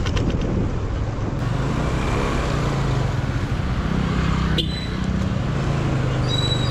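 Motorcycle engine running under the rider as the bike moves through town traffic, its note rising and falling, with road and wind rush. A single short, sharp sound comes about four and a half seconds in.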